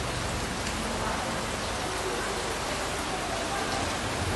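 Heavy rain falling, a steady even hiss with no let-up.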